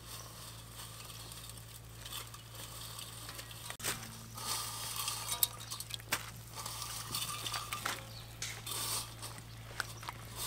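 Wire spider strainer stirring noodles in a large metal wok of water, scraping and clinking against the pan. The sound starts soft and grows busier, with a scatter of sharp clinks from about four seconds in.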